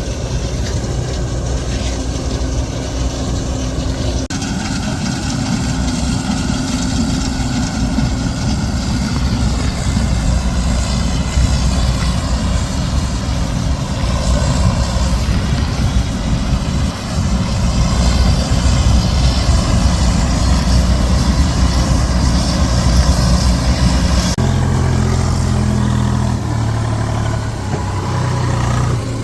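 Diesel farm machinery running steadily, a combine harvester or tractor at work. The engine sound changes abruptly about four seconds in and again near the end.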